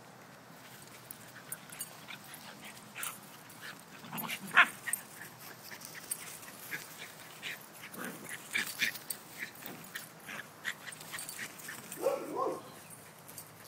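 Two dogs play-fighting: scattered short yips and scuffles, one sharp loud one about four and a half seconds in, and a short whining yelp near the end.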